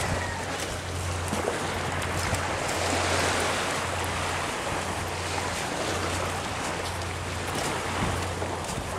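Small waves washing onto a pebbly shore, a steady hiss of surf, with a low hum underneath that drops out briefly a few times.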